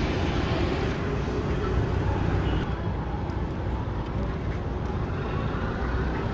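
Steady low rumble of outdoor background noise, with road traffic.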